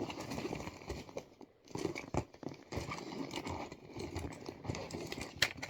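Rustling and clicking of small objects being handled and rummaged through in a bag, with scattered sharp clicks.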